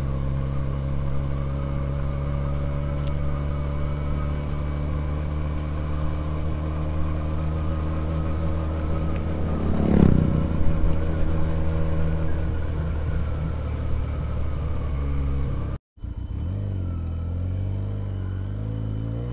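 Benelli TNT 300 parallel-twin engine running at a steady cruise, heard from the rider's position, with a single sharp thump about halfway through. After a brief gap in the sound near the end, the engine note runs lower and wavers as the throttle changes.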